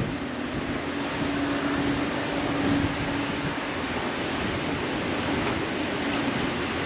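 Steady rushing noise of wind, with a faint low steady hum during the first few seconds.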